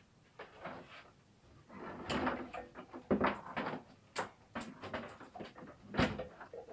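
Irregular knocks, scrapes and clatter of things being handled, with a brief thin high tone about four seconds in.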